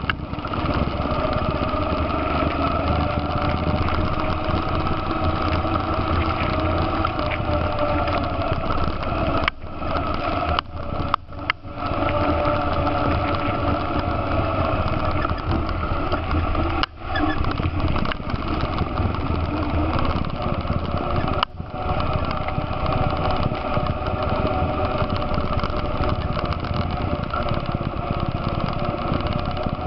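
ATV engine running steadily while riding along a trail, its pitch drifting a little with throttle. A few brief drops in the sound come between about ten and twenty-two seconds in.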